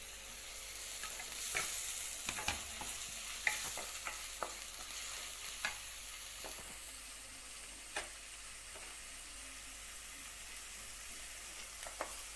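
Chopped tomato and onion sizzling in hot oil in a stainless steel kadai, stirred with a spatula that scrapes and taps against the pan. The taps come thickest in the first few seconds, with a lone one about eight seconds in and a few more near the end.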